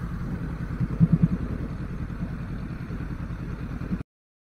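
Honda CB500X parallel-twin engine idling, a steady low pulsing rumble that cuts off suddenly about four seconds in.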